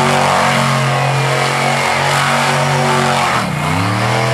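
Monster truck engine held at high revs while the truck spins donuts in the dirt. About three and a half seconds in the revs drop briefly, then climb back up.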